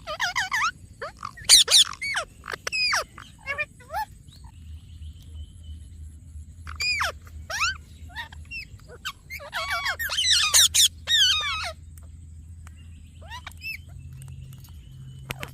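Parrot chirping and calling in quick runs of short notes that swoop up and down in pitch, coming in several clusters with pauses between; the busiest runs are at the start and about ten seconds in. A faint steady high-pitched whine sits underneath.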